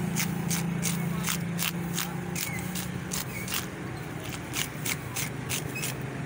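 Hand fish scaler scraping scales off a large whole fish in quick repeated strokes, about two to three a second, over a steady low hum.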